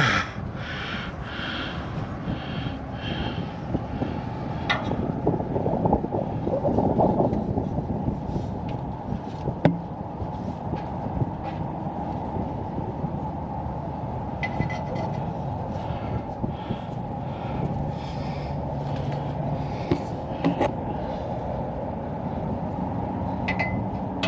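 Steady scuffing and rubbing as a hand and arm work in the tight gap between a truck's frame and exhaust pipe, threading in an oxygen sensor, with a couple of sharp metal clicks.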